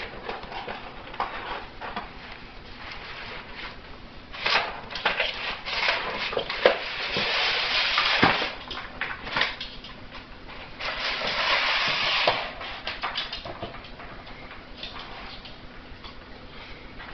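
West Highland White Terrier tearing open a cardboard box with its teeth: crinkling, ripping and rustling of cardboard and packaging in uneven bursts with sharp clicks. The longest, loudest spell comes about midway, and a shorter one comes a few seconds later.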